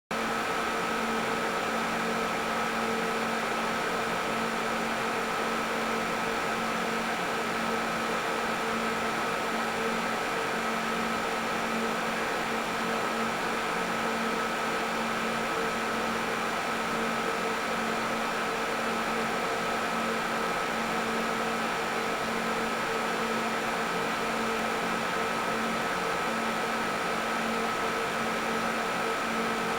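Computer server room ambience: a steady, unchanging whir of running machines and cooling fans. It is an even hiss with a few constant hum tones in it, one of them fairly high-pitched.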